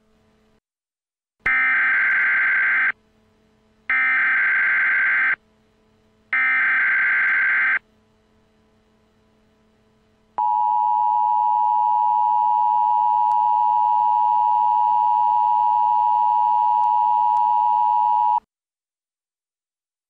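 Emergency Alert System SAME header: three bursts of warbling data tones, each about a second and a half long with about a second between them, encoding an Emergency Action Termination. Then the two-tone EAS attention signal sounds steadily for about eight seconds and cuts off sharply.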